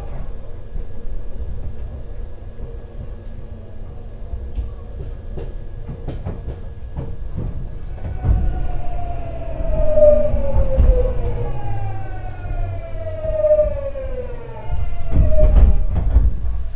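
Tokyu 9000 series train's Hitachi GTO-VVVF inverter and traction motors whining as it brakes and slows, heard from inside the car: two falling tones follow one another in the second half, over a low running rumble with scattered wheel clicks, and the rumble grows louder near the end.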